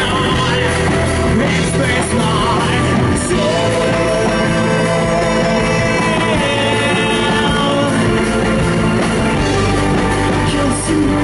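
Rock band playing live at full volume, with the lead singer belting into a handheld microphone over guitars and drums and holding long notes in the middle.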